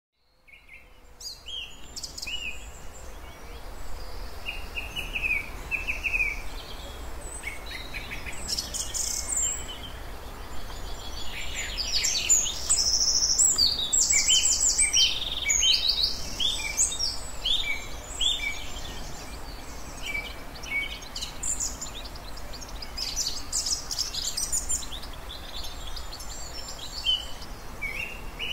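Several birds singing and calling at once, a dense chorus of overlapping chirps and rapid trills that is busiest in the middle, over a steady low rumble.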